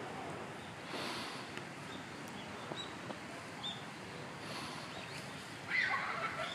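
Steady outdoor background noise with a few short, high chirps, and a brief louder burst of calling near the end.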